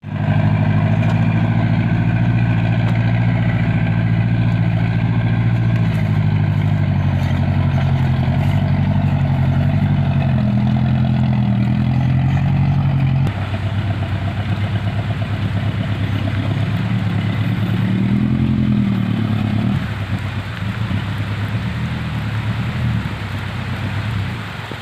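A motor vehicle's engine running, its pitch rising and falling with the throttle. The sound drops suddenly about halfway through and runs on at a lower level.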